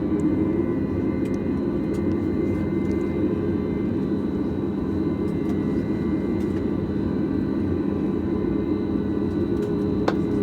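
Steady cabin noise inside a Boeing 737 MAX 8 on the ground: a constant low hum with faint steady high whine tones running through it. A single sharp click comes near the end.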